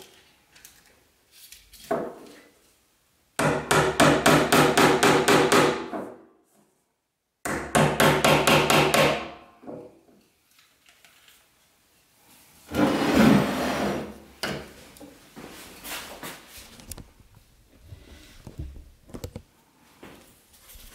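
Small hammer tapping on the brass pins of a wooden knife handle, in two runs of quick taps at about five a second a few seconds in, then a shorter, rougher burst of strikes about halfway through.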